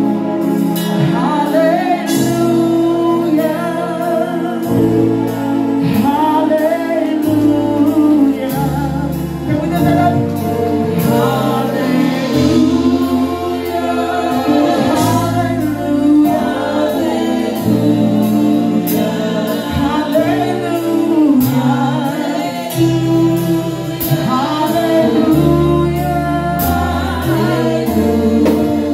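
Live gospel praise music: a woman sings lead into a microphone over a drum kit and keyboard, with sustained bass notes and steady cymbal and drum hits.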